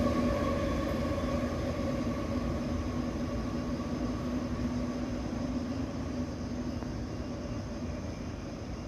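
MTR MLR electric train rolling away along the track, its rumble and steady hum slowly fading as it recedes.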